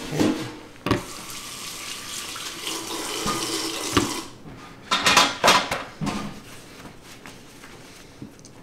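Kitchen sink faucet running as hands are rinsed under it, shut off about four seconds in, followed by a few short rustles as the hands are dried with a towel.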